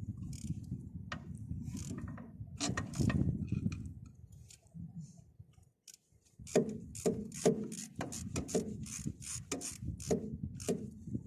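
Ratchet wrench clicking in a steady rhythm, about three clicks a second, from about halfway in, as bolts on a bulldozer's oil cooler assembly are worked; before that, a low rumbling clatter with a few knocks.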